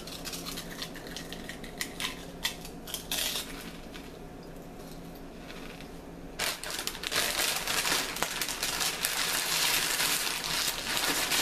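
Crunching of a wavy potato chip being bitten and chewed: sharp crisp cracks in the first few seconds, then a louder, denser crackle from about six seconds in.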